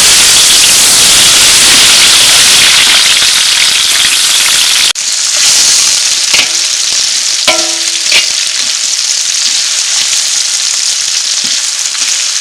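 Sliced shallots sizzling in hot oil in a large aluminium pot, the hiss loudest in the first few seconds after they hit the oil. After an abrupt break about five seconds in, the sizzle goes on quieter while a perforated metal skimmer stirs them, scraping the pot a few times.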